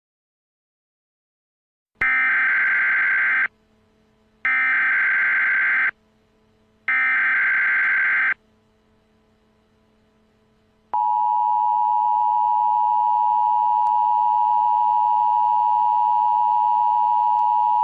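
Emergency Alert System tones: three short bursts of SAME header data, each about a second and a half long, then, about eleven seconds in, the steady two-tone attention signal begins. Together they announce an emergency broadcast message.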